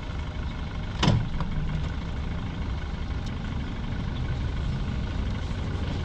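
Yamaha 115 outboard motor idling steadily, with a single sharp knock about a second in.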